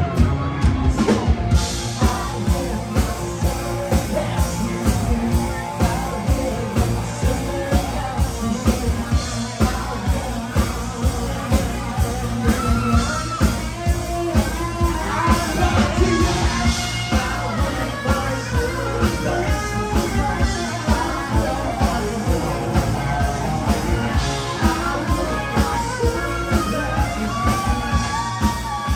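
Live rock band playing a song with a singer, over a steady beat.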